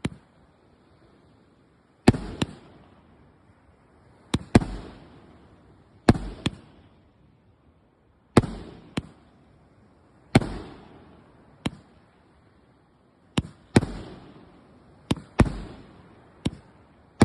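A run of sharp firecracker bangs, one every one to two seconds and often in close pairs, each trailing off in an echo. There are about fifteen in all.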